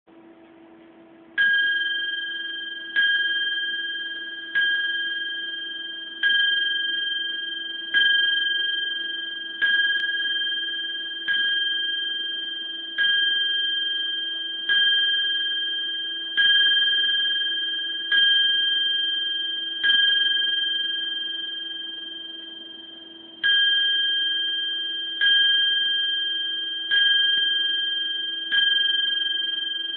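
A small hanging bell rung by swinging, its clapper striking about every second and a half with a clear ringing tone that fades between strikes. There is one longer pause about two-thirds of the way through.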